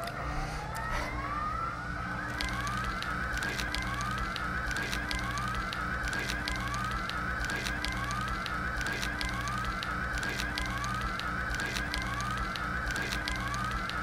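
Electronic music with a siren-like whoop rising in pitch about once a second over a pulsing low beat, with sharp crackling clicks throughout.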